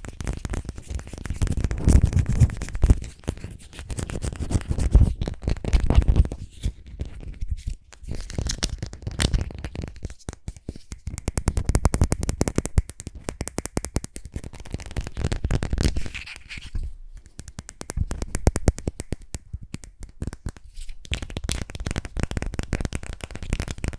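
Close-miked ASMR sounds made with lip balm: dense runs of crackly tapping, clicking and scratching, some very fast, with low thuds between them.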